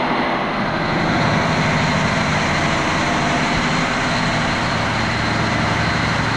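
Engine-driven electric generators in a power plant running: a very loud, steady mechanical din with a low hum underneath.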